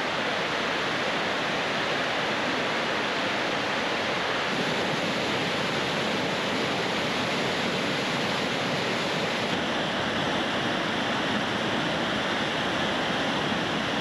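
Water of the Maligne River rushing through the canyon's cascades: a steady, unbroken wash of noise.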